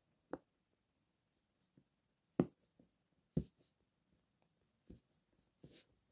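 Silicone pop-it fidget ball, its bubbles pushed through one at a time by a finger: a string of short, sharp pops, the loudest a little way in and twice more about two and a half and three and a half seconds in, with softer pops near the end.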